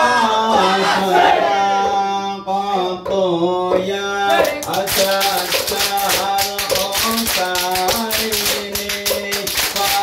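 Men's voices singing a sholawat chant together; about four seconds in, fast rhythmic hand-clapping joins the singing, the clapped accompaniment of ISHARI hadroh during the mahallul qiyam.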